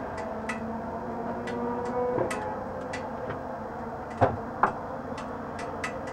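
Two sharp knocks about four seconds in, half a second apart, as the driver climbs out of a stopped Star Mazda open-wheel race car's cockpit. Light scattered clicks run over a steady hum.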